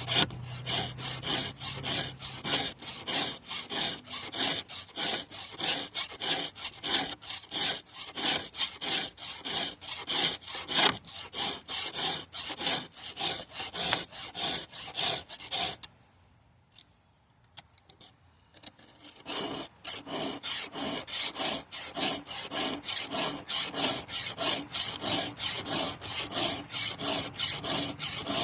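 Hand file rasping across the cutting teeth of a chainsaw chain in a quick, even rhythm of strokes. It pauses for about three seconds a little past halfway, then starts again.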